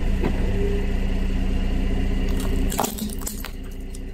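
A car creeping forward with its engine running at a steady low hum; about two and a half seconds in, a plastic toy glasses frame cracks and snaps several times as the tyre rolls over it on paving stones.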